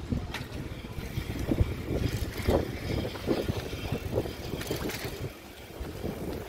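Wind buffeting the microphone during a bicycle ride, an uneven low rumble with a few light clicks and rattles.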